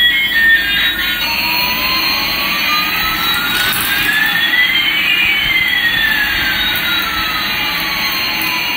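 Electronic jet-engine sound effect from a toy Airbus A380 airplane's small speaker. It is a hissing whoosh in which one whistle rises in pitch while another falls, the two crossing about midway.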